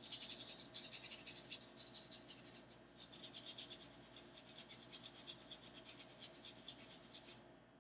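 Stiff brush scrubbing a soldered circuit board in quick, repeated scratchy strokes, cleaning off the soldering flux. The scrubbing stops shortly before the end.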